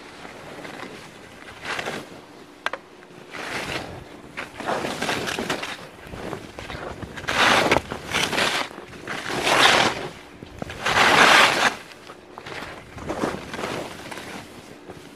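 Skis sliding and scraping through snow in a series of turns, a swell of noise with each turn about every second or so; the loudest turns come in the middle.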